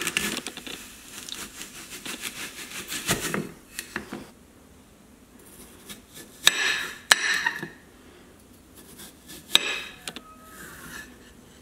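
Apple crunching as a plastic corer-slicer is pushed down through it in the first second or so. Later a chef's knife cuts through apple wedges with a few sharp knocks of the blade on the ceramic plate.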